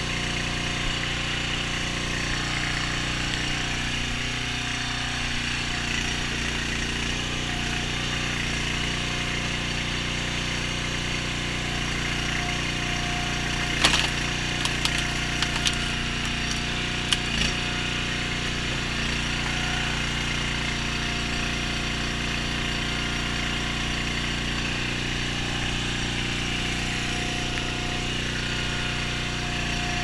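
A gas-engine hydraulic log splitter running steadily as it works. Between about 14 and 17.5 seconds in there is a cluster of sharp cracks as a round of wood splits on the wedge.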